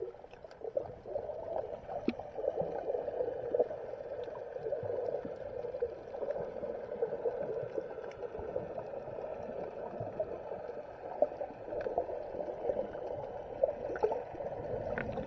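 Muffled underwater noise picked up by an action camera held beneath the surface: a steady water sound with scattered faint clicks.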